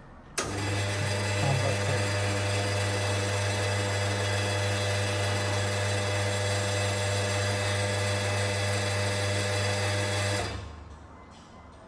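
Conti espresso machine's water pump switching on with a click and running with a steady hum for about ten seconds, refilling the boiler now that the pump has been re-enabled. It then cuts off.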